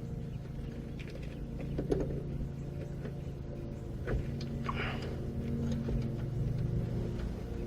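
A steady low hum with a few faint metallic clinks and scrapes of hand tools working on battery cable ends, about two seconds in and again around four to five seconds in.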